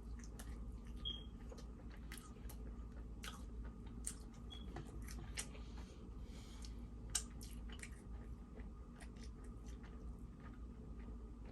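A person chewing food close to the microphone, with irregular small wet clicks and smacks of the mouth.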